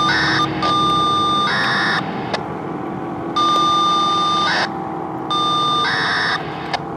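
FSK radio data signal for siren secondary deactivation, heard over a radio scanner: about three bursts a second or so apart, each a steady high beep that breaks into a rapid warbling data tone.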